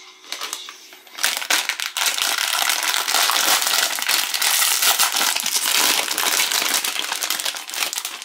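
Plastic wrapper of a Chipicao croissant pack crinkling and crackling loudly as it is handled and pulled open, starting about a second in.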